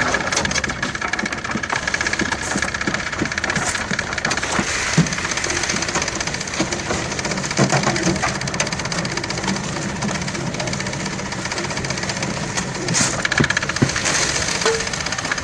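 An engine running steadily with a fast rattle, and several sharper knocks and clanks over it.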